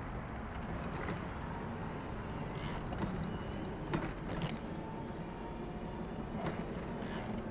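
Bicycle rolling along a paved trail: a steady low rumble of tyres and wind, with a few sharp clicks and rattles here and there.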